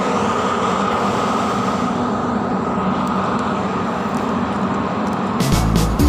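Steady rushing noise with a steady hum beneath it: the open-air ambience of a high-rise rooftop. About five and a half seconds in, music with a strong regular beat comes in.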